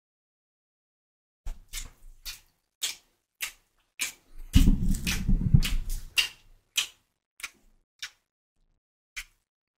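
Close-miked ASMR eating sounds: a run of sharp, wet chewing clicks about two a second, with a louder, denser burst of chewing a little past the middle.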